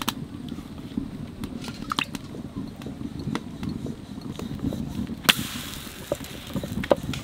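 Fire in a clay stove crackling, with sharp pops throughout. About five seconds in, the wet side of a wheat-dough roti lands on the very hot iron tawa and hisses loudly, the hiss fading over the next two seconds.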